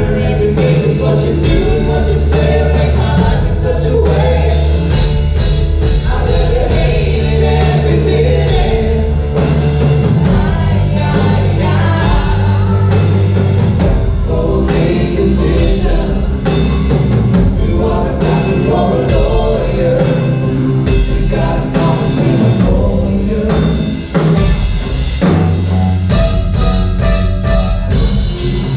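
Live band music with drums and voices singing, loud and continuous, with a brief dip in level about 24 seconds in.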